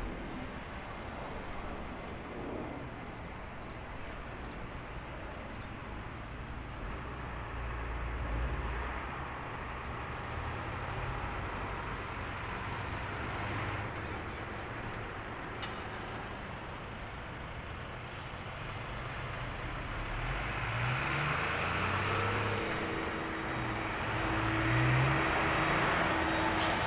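Airbus A330-200 airliner's jet engines running at low thrust as it rolls out after landing and turns off the runway, a steady rushing noise that grows louder over the last several seconds as the aircraft comes nearer.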